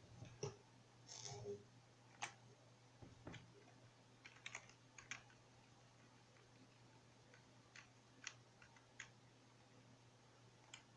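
Faint, irregular clicks of a computer keyboard being typed on, over a low steady hum. There is one brief muffled sound about a second in.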